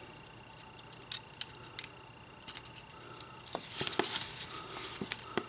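Hard plastic parts of a Transformers action figure clicking and scraping as it is handled and a weapon accessory is pegged into it: scattered light clicks, with a busier run of clicks about three and a half seconds in.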